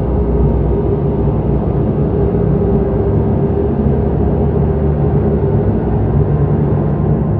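Low, steady rumbling drone with one held mid-pitched tone: a dark ambient horror-film score.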